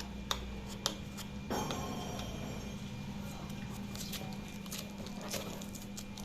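Cardboard packing being handled and pulled open: two sharp clicks in the first second, then continuous rustling and scraping with scattered clicks, over a steady low hum.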